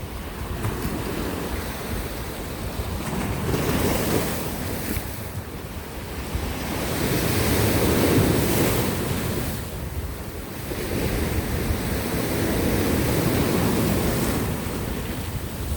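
Sea waves breaking on rocks and washing back, in slow surges about every four to five seconds, with wind buffeting the microphone.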